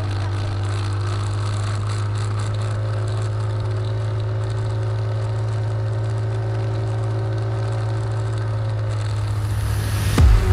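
Quad's engine running at a steady throttle with wind and tyre noise, heard from the handlebars, the pitch holding constant. A sudden loud thump near the end.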